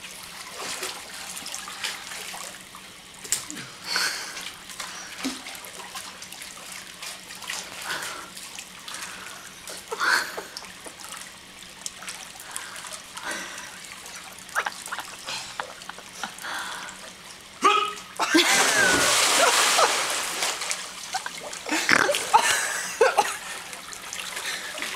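Swimming-pool water splashing and lapping as a person swims, with scattered small splashes. About eighteen seconds in comes a louder burst of heavy splashing that lasts a few seconds.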